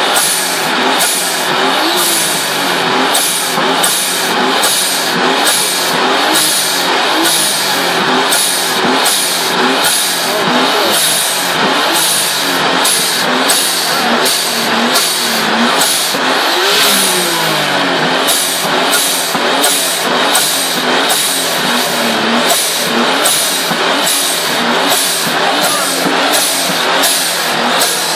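Nissan R33 Skyline's turbocharged straight-six revved hard in rapid repeated throttle blips, about two a second, with one longer rev rising and falling a little past the middle.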